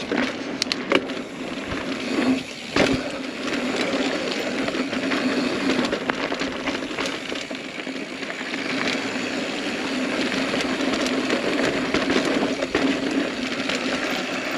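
Mountain bike riding fast down a dirt singletrack: knobby tyres rolling over hard-packed dirt with a steady hum, and the bike rattling, with several sharp knocks over bumps in the first few seconds.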